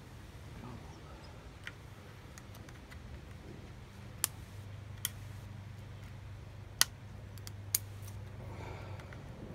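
Small scissors snipping at tangled cast-net line: a handful of sharp, irregularly spaced snips, the loudest a little under seven seconds in.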